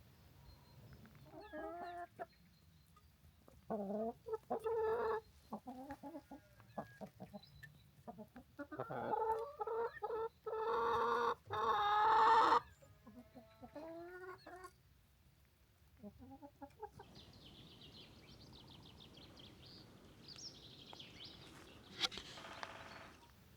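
Chickens clucking and calling in a series of short calls, the loudest and longest call running from about nine to twelve seconds in. This is followed by a fainter, high, raspy sound and a single sharp click near the end.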